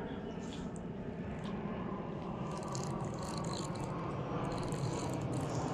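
Spinning fishing reel being cranked, its mechanism giving off rapid faint scratchy clicking from about two and a half seconds in, over a steady outdoor rush of wind and water.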